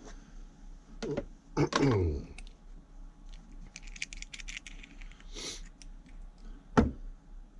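Small metal plumbing fittings and tools being handled: a knock, a short sound that falls in pitch about two seconds in, a quick rattle of light clicks, and a sharp knock near the end.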